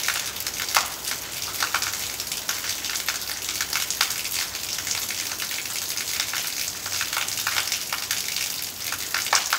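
Heavy rain falling: a steady hiss with many sharp splashes of drops.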